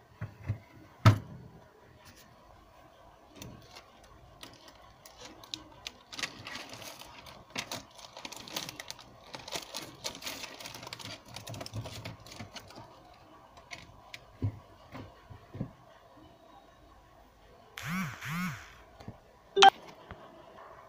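Crinkling chocolate-bar wrappers and light clicks of plastic as chocolates are handled on a fridge door shelf. There is a sharp knock about a second in, and another near the end as the fridge door shuts.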